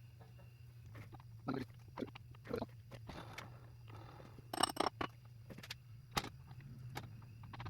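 Metal automatic-transmission parts being handled and fitted by hand: a series of separate clicks and knocks, with one ringing metallic clink a little past the middle, over a steady low hum.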